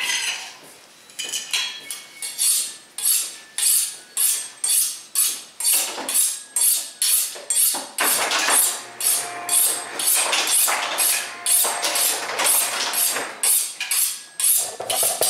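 Kitchen knife being honed on a sharpening steel: a steady run of quick metallic scraping strokes, about two a second.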